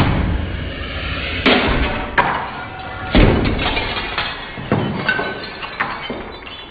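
A cat jumping about on wall-mounted wooden cabinets, with a run of sharp knocks and clatters, about five loud ones and a few smaller ones, some followed by a brief ringing.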